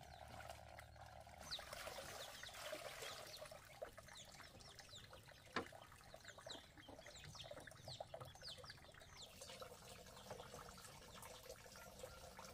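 Faint trickling and splashing of water being poured, in many small drops, for hand and face washing. A single sharp knock about halfway through.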